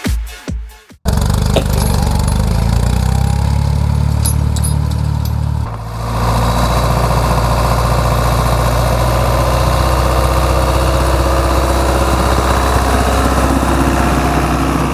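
Loud dance music cuts off about a second in, and a tractor's diesel engine takes over, running steadily. After a cut near six seconds, an Ursus C-360's three-cylinder diesel engine works steadily as it pulls a harrow past close by.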